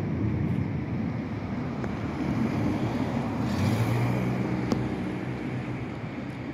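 Distant aircraft overhead: a steady, low rumbling drone, with a deeper engine hum joining about three and a half seconds in. A single sharp click comes near the end.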